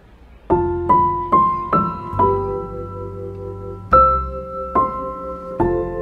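Background music: a slow solo piano piece, separate notes and chords struck one after another and left to ring, starting about half a second in.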